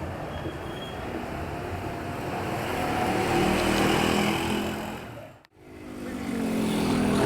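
Street traffic: a motor vehicle's engine running, growing louder as it passes. About five and a half seconds in, the sound drops out abruptly for a moment, then the traffic noise returns.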